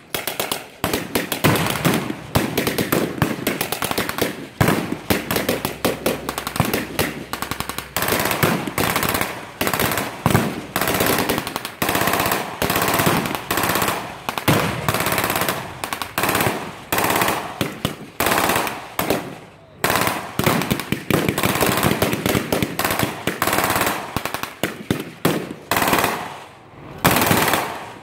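Sustained machine-gun and small-arms fire: automatic weapons rattling in long bursts, with a few brief lulls.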